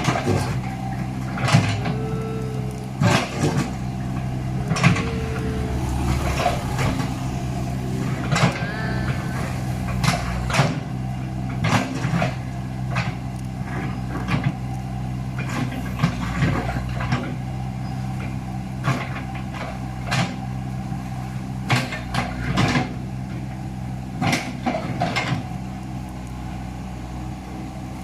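Komatsu hydraulic excavator's diesel engine running steadily while the machine works, with irregular knocks and clanks as its bucket strikes and scrapes the broken road surface every second or two.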